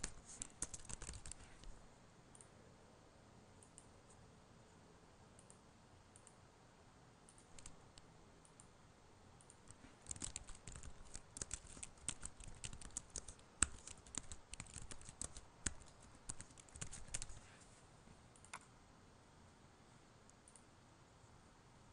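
Faint typing on a computer keyboard: a short run of keystrokes at the start, then a longer run of rapid keystrokes from about ten seconds in, followed by a single click.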